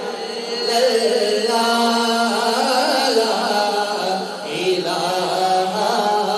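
A man's solo voice singing Islamic devotional verse (naat or manqabat) in the chanting style, into a microphone, with long held notes that waver and bend in pitch.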